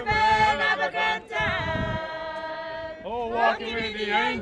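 Church singing: several voices hold long notes together, with a rising slide in pitch about three seconds in.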